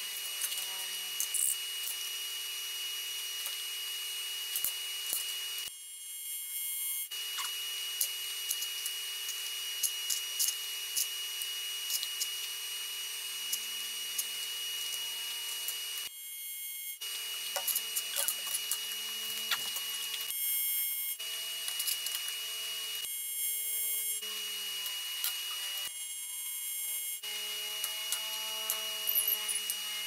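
TIG welding arc on aluminium: a steady hiss with a high steady tone and scattered crackling. The arc stops and restarts about five times as the plates of a die are tacked and welded.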